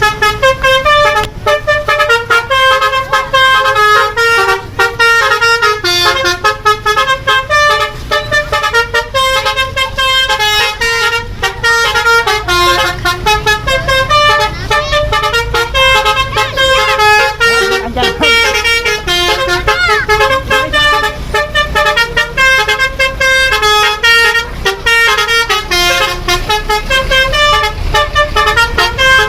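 Basuri telolet horn on a bus playing a tune nonstop: loud multi-tone horn notes stepping quickly from pitch to pitch, over a low rumble.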